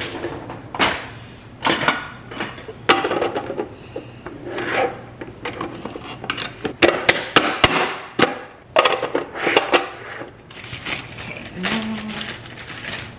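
Plastic push-down vegetable chopper dicing a tomato: a series of sharp plastic clacks as the lid is pressed down through the blade grid, in quick runs, among other knocks of things handled on the counter.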